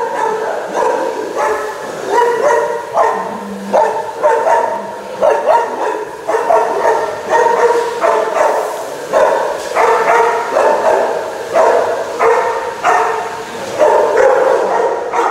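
Dogs in shelter kennels barking over and over, the barks overlapping one another without a break, in a tiled kennel room with metal cage doors.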